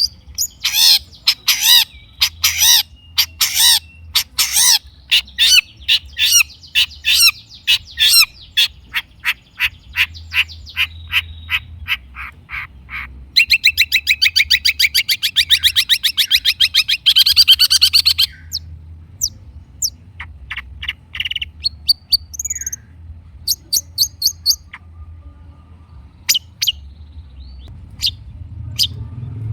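Long-tailed shrike (cendet) singing energetically: a run of loud, sharp, rapid notes, then a fast rattling trill lasting about five seconds midway, then scattered short chips.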